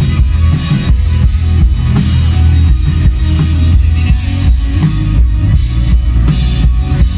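Live rock band playing loud, with a drum kit keeping a steady beat over heavy bass.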